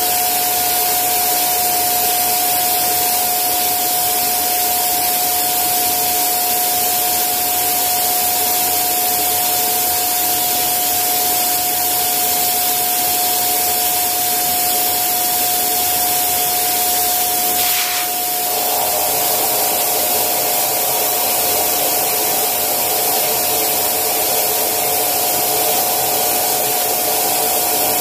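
Small electric air pump running steadily with a whining hum and rushing air, inflating a vinyl inflatable chair. About eighteen seconds in the sound dips briefly and its note changes slightly.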